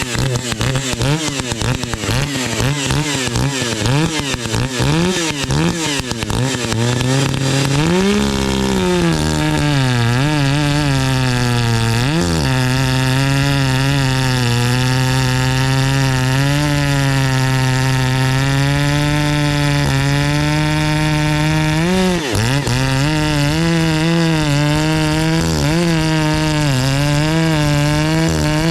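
Two-stroke chainsaw with a modified muffler running at high revs. Its pitch wavers up and down for the first several seconds, then holds steady, dipping briefly twice.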